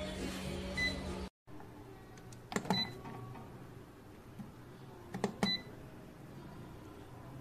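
Xiaomi Mi Smart Air Fryer's control dial being pressed and turned: short high electronic beeps, one about a second in and then two more near three and five and a half seconds, the last two each with a few sharp clicks from the dial just before them.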